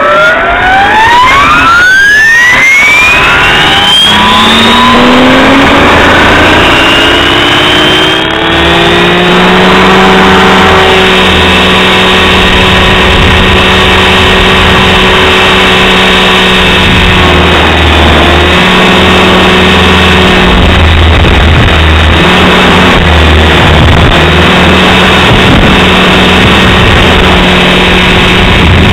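Align T-Rex 550 electric RC helicopter spooling up with a rising whine over the first few seconds, then running at a steady governed head speed with a constant rotor and gear whine. Wind buffets the microphone.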